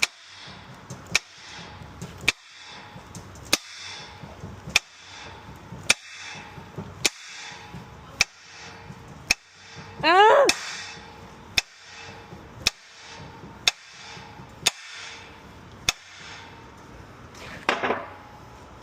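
Sharp clicks at a steady pace, about one a second, from hand work on a cylinder being rebuilt. There is a short rising squeak about ten seconds in and a brief scraping burst near the end.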